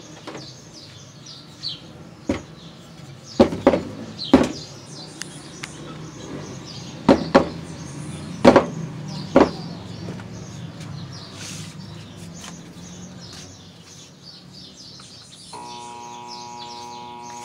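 About six sharp knocks on a seized centrifugal water pump as it is worked to free it, over a low steady hum that fades out before the end. Birds chirp throughout, and music starts near the end.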